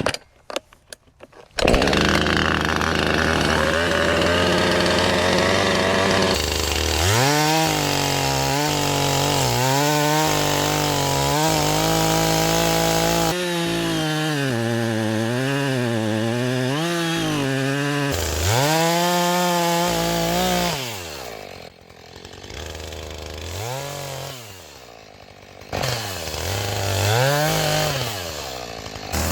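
Two-stroke chainsaw starting up about two seconds in, then running and cutting into the trunk. The engine speed rises and sags repeatedly under load, and drops lower and quieter for a while before picking up again near the end.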